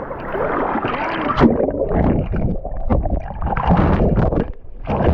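Water splashing and sloshing close to the microphone as a person moves through deep water, with irregular splashes and some wind buffeting.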